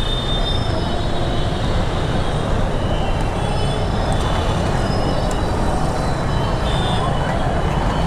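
Steady road noise from riding a motorcycle in traffic: a dense, even rumble of wind on the microphone mixed with engine and passing traffic.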